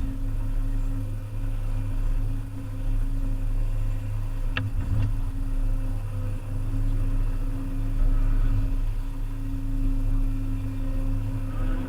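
Volvo EC300EL excavator's diesel engine running at a steady pitch, with a short high-pitched squeak near the middle.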